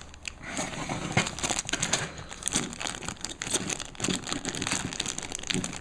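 Wrapping crinkling as small items from a pocket survival tin are handled and taken out, an irregular crackle with small knocks.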